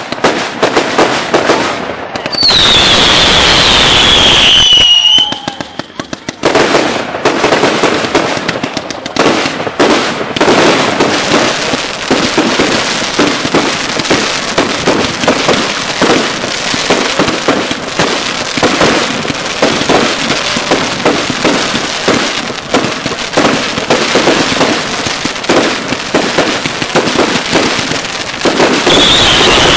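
Consumer firework cakes firing. Early on there is a loud hissing rush with a whistle that falls in pitch, then a long run of rapid shots and crackling bursts, and another falling whistle near the end.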